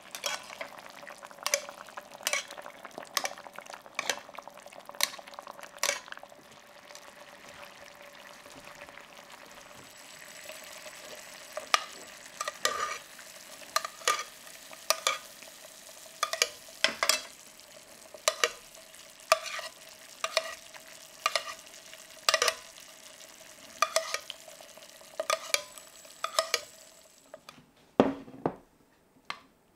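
Metal spoon clinking and scraping against a stainless steel pan, about once a second, as pork ribs are basted in sauce simmering with a steady sizzle while it reduces. The clicking pauses for a few seconds early on, and there is a last knock near the end.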